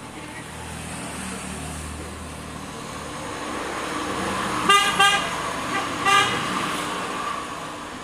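Vehicle horn honking in passing street traffic: two quick toots about halfway through and a third about a second later, over the rising noise of a passing vehicle.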